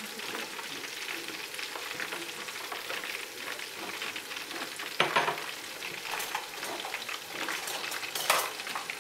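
Corn and shrimp kakiage fritters frying in a pot of hot oil: a steady sizzle, with two short sharp knocks, about five and about eight seconds in.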